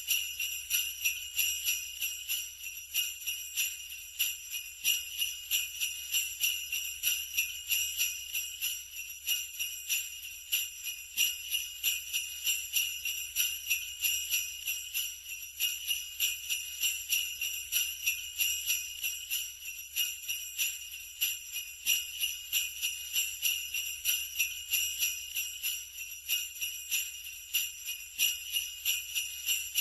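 Sleigh bells shaken in a steady, even rhythm of about three shakes a second, with bright, continuous jingling.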